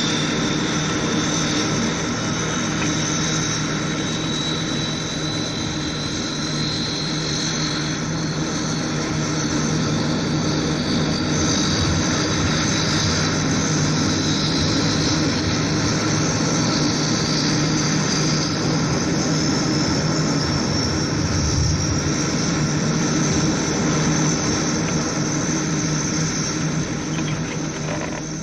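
Steady drone of an Ilyushin Il-18's four turboprop engines heard inside the passenger cabin in flight: a low hum under a broad rush, with a high whine that drifts slowly in pitch.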